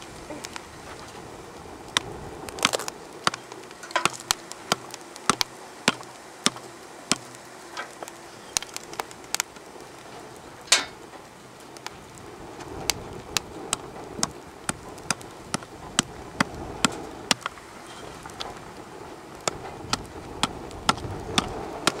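Wood fire crackling in a small folding camp wood stove, with sharp irregular pops and snaps one or two at a time over a steady low hiss of the burn.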